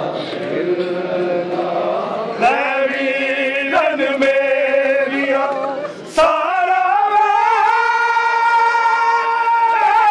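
Men's voices chanting a devotional recitation in long drawn-out notes. The chant breaks off briefly about six seconds in, then starts a new phrase held on a higher note.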